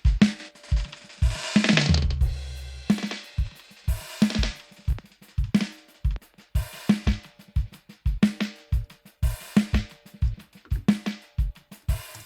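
A drum beat from a sampled small drum kit (bass drum, snare, tom and cymbal), played through an echo/delay plug-in, with the bass drum landing about twice a second under washes of cymbal.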